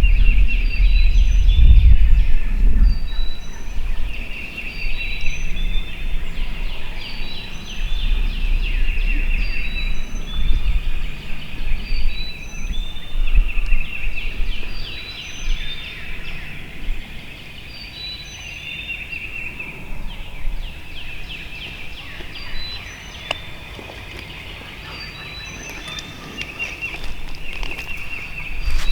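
Wild turkeys (eastern wild turkey) gobbling over and over, several calls overlapping, louder in the first half and dropping off later.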